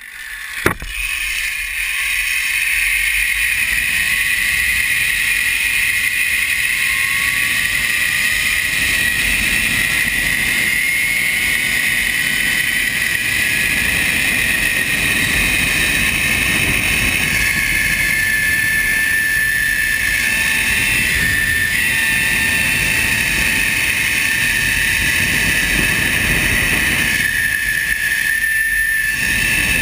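Zipline trolley pulleys running fast along the steel cable: a steady, loud, high whine over rushing wind on the microphone. A sharp click comes just under a second in, and the sound builds over the first few seconds as the trolley picks up speed.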